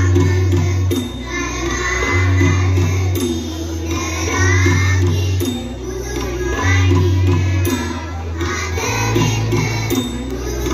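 A children's choir singing a Sinhala devotional song (bakthi gee) over amplified backing music. A heavy bass line changes note about once a second under the voices.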